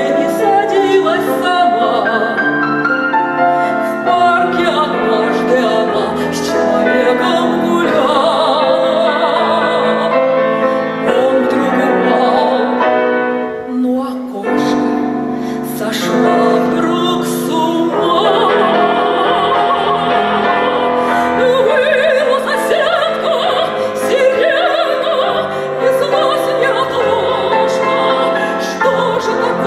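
A woman singing in a trained operatic voice with strong vibrato, accompanied by grand piano. The singing lets up briefly about halfway through, then resumes.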